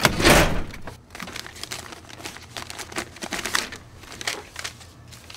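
A metal card-file drawer slid open, then papers or file cards flicked through by hand: a quick run of short papery flicks for about four seconds while a record is searched for.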